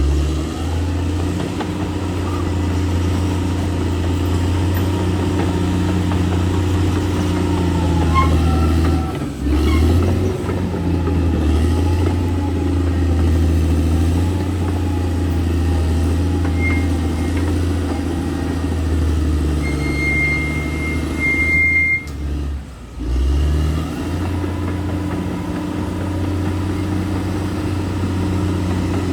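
Crawler bulldozer's diesel engine running steadily under load, a deep droning hum that dips briefly twice, with a short high-pitched squeal about two-thirds of the way through.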